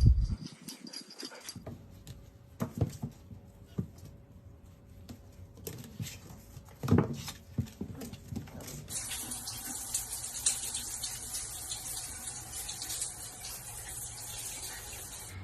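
A dog making short sounds among knocks and bumps. About nine seconds in, a steady high hiss takes over.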